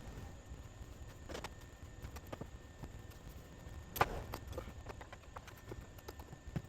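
Scattered clicks and knocks of hand work, with one sharp knock about four seconds in, over a low rumble.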